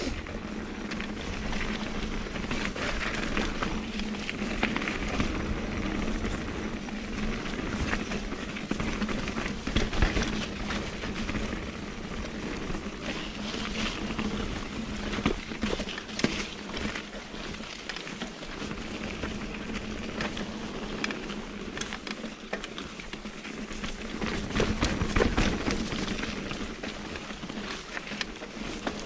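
Mountain bike riding over a dirt trail: steady tyre and wind noise with frequent rattles and knocks from the bike over rough ground.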